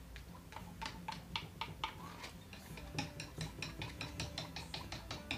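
A quick series of light ticks and taps, about five a second, over faint background music.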